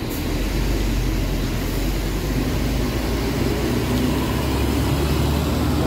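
Intercity coach bus's diesel engine running steadily under load as the bus pulls away, a low continuous rumble.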